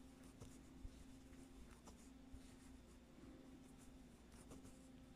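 Near silence: faint scattered ticks and rustles of a crochet hook working yarn, over a low steady hum.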